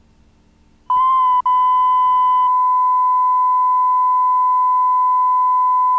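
Steady 1 kHz reference test tone of a broadcast colour-bar signal, starting about a second in after a faint low hum, with a brief dropout just after it begins.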